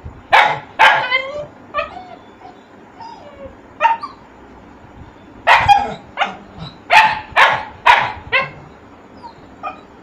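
Small puppy barking: two sharp barks right at the start, a few scattered single barks, then a quick run of about six barks in the second half.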